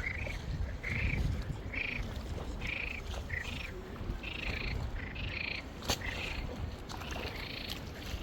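Frogs croaking in a rice paddy, short calls repeating about once or twice a second, over a low rumble, with a single sharp click about six seconds in.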